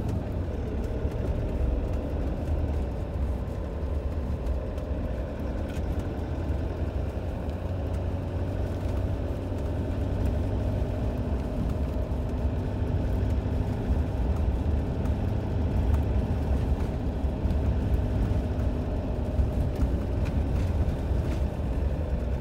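Campervan driving along a gravel and dirt track, heard from inside the cab: a steady low rumble of engine and tyres on the rough surface with a faint engine hum above it.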